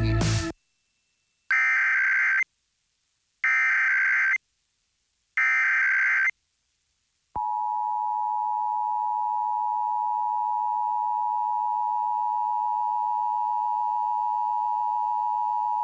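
Emergency Alert System header: three one-second bursts of buzzing SAME digital data tones, a second apart. About seven seconds in, the steady two-tone EAS attention signal starts and holds for about eight seconds. Together they signal the start of an EAS Required Monthly Test.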